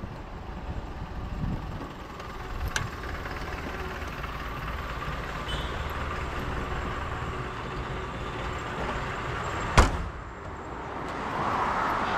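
1997 Maruti 800's 796 cc three-cylinder engine running steadily while the car is driven, with road noise under it. There is a light click about three seconds in and a single sharp knock about ten seconds in, after which the noise swells.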